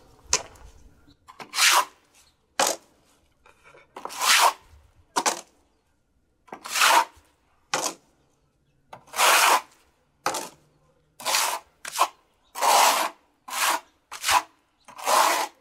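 Steel plastering trowel spreading a stucco top coat across a wall: about a dozen short, rough scraping strokes, irregularly spaced.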